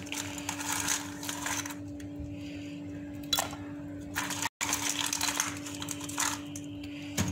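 A few clinks of ice cubes dropping into a glass blender jar of banana milkshake, over a steady low hum.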